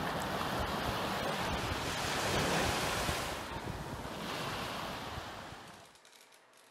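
Small sea waves breaking and washing up on a sandy beach, the surf swelling louder twice as waves come in, then fading out near the end.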